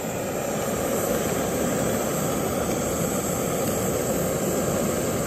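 Steady, even rushing noise at a constant level.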